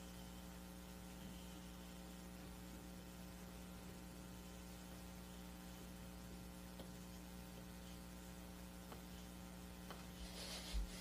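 Steady electrical mains hum over faint hiss, the background of the recording. Near the end there is a brief soft rustle and a short low thump.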